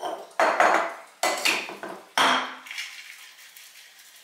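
Stainless-steel cocktail shaker tins clanking against each other four times in the first couple of seconds as they are handled and sealed. Then a soft, steady sloshing as the drink is shaken again without ice to froth the egg white.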